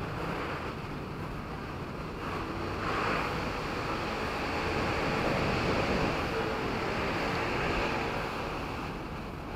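Steady running noise of a slowly moving train: a low rumble with a hiss, a little louder in the middle.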